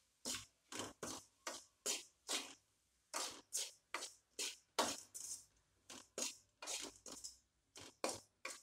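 Metal ladle scraping and stirring diced onion, tomato and capsicum around a metal kadai, mixing in freshly added masala powder, in short separate strokes about two to three a second.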